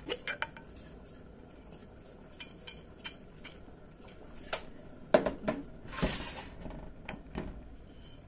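Metal tea canister and its lid being handled: scattered clicks and knocks, the loudest cluster about five seconds in, as loose green tea leaves are tipped out. There is a short rustle about six seconds in.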